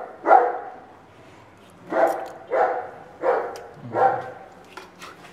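A dog barking about five times in short, spaced barks, demanding a share of the food.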